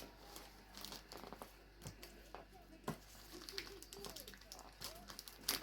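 Faint rustling and scattered small clicks of gift-wrapping paper and ribbon being handled.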